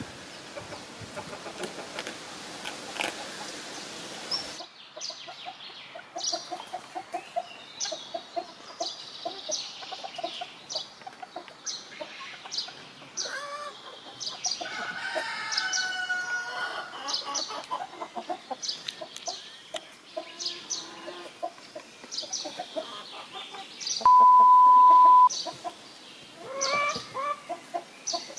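Chickens clucking and chirping, with a rooster crowing once about halfway through. A hiss at first cuts off suddenly, and near the end a loud, steady beep lasts about a second.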